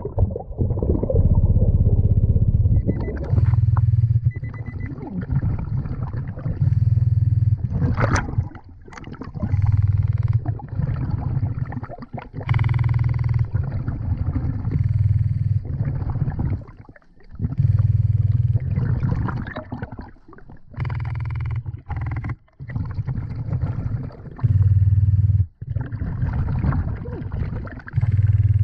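A diver breathing through the BLU3 NEMO hose-fed regulator underwater: each exhale is a loud, low bubbling rumble, repeating about every three seconds, with quieter water noise and inhales between.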